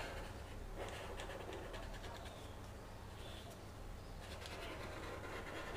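Faint scratching of a felt-tip marker drawn over paper in short strokes.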